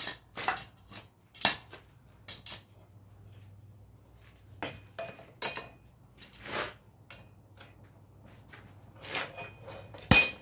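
Irregular metallic clinks and knocks of hand tools being handled, then a loud hammer blow on metal with a ringing tone near the end.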